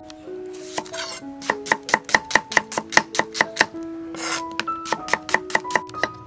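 Cleaver chopping shallots on a wooden chopping board: quick, even knocks about five a second, with a short break near the middle. Two brief swishes come between the runs of chopping.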